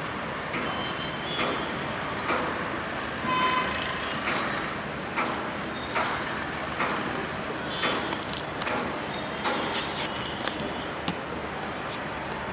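Palm squirrel giving repeated high, sharp alarm chirps about once a second, coming quicker and sharper in the second half: the call of a squirrel agitated at its disturbed nest. Steady traffic hum underneath.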